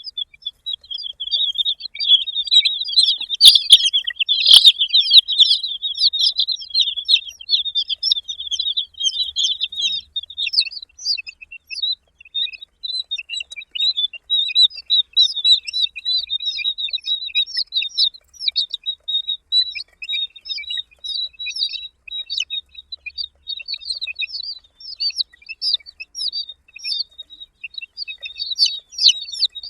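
A flock of baby chicks peeping continuously, many high, short peeps overlapping. Two sharp knocks stand out a few seconds in, about a second apart.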